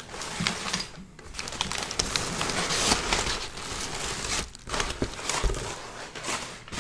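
Clear plastic wrap around a boxed camera and brown kraft packing paper crinkling and rustling as the wrapped box is handled and pulled out of the shipping carton. The crackle is irregular and busy, easing off briefly about four and a half seconds in.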